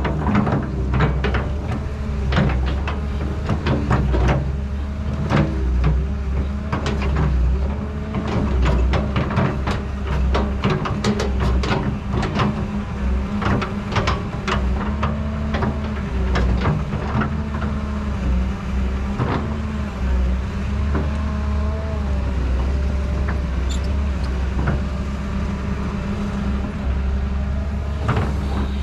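Excavator working: a steady low drone from its engine or hydraulic pump, with frequent clicks and knocks and a wavering whine over it.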